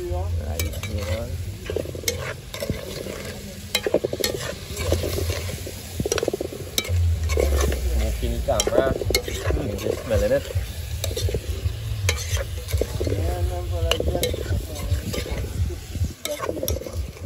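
A large metal spoon stirring and scraping around a metal pot of chicken frying in oil and browned sugar, sizzling over a wood fire, with many sharp clicks of the spoon against the pot. A low steady rumble runs underneath.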